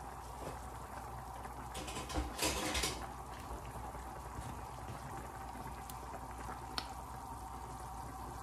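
Pan of lamb shanks in broth simmering on a gas stove, a steady low bubbling. A brief louder burst of noise comes about two seconds in, and a single click near the end.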